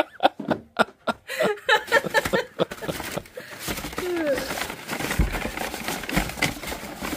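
Laughter in quick bursts at the start, then steady rustling and crinkling of packing material as the next figurine is unwrapped by hand, with two low thumps in the second half.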